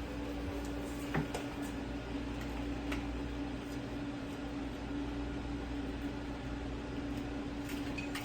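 Steady low electrical hum from nearby machinery, with a few light clicks and taps of a braided hose's fitting being handled and threaded onto a water heater valve.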